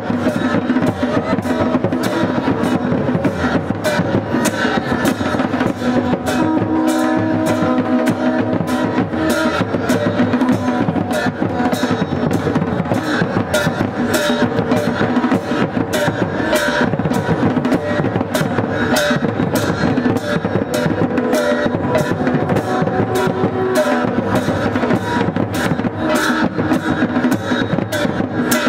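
Procession music: large drums beating a steady rhythm, with held tones underneath.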